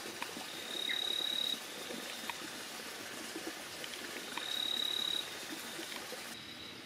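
Night-time forest-stream ambience: a steady hiss with two long, high, steady calls of about a second each, a few seconds apart, and a few faint ticks.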